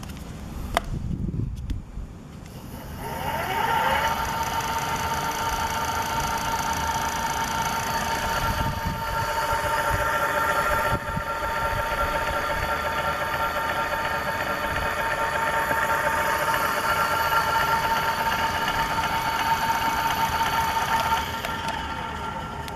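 Leaf 20-inch 48V 500W brushless geared front hub motor spinning its wheel freely under throttle with a steady whine. About three seconds in it whines up in pitch to speed, and near the end it slows and fades.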